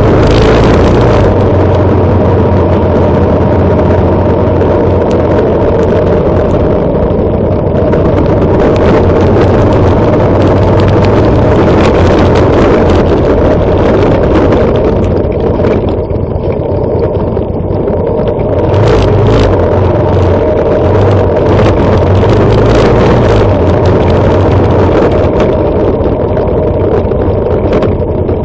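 Motorcycle engine running at a steady riding pace, loud, mixed with heavy wind rumble on the microphone of the moving vehicle it is recorded from.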